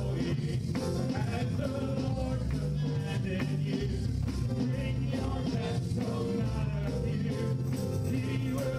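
A live worship band plays an upbeat gospel song at a steady level, with drum kit and keyboard under several singers singing together into microphones.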